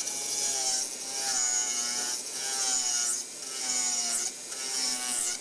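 Dental milling unit's micromotor-driven cutter grinding a metal coping in short repeated passes, about one a second, each pass a high, whining scrape as the cutter bites the metal.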